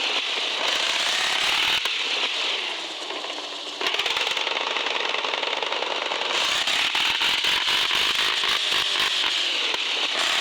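Electric motor and gearbox of a radio-controlled 4x4 scale truck whining and rattling as it drives, easing off about three seconds in and then picking up again sharply.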